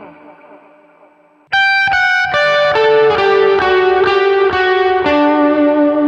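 Electric guitar played through a Line 6 amp-and-effects modeler. A held note fades away, then about a second and a half in a new phrase of picked notes starts abruptly and rings on, the notes overlapping.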